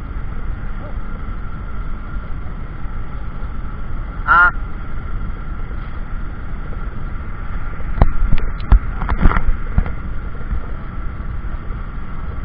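Steady low rumble with a constant high hum throughout. There is a short call from a voice about four seconds in, and a cluster of sharp knocks from about eight to ten seconds.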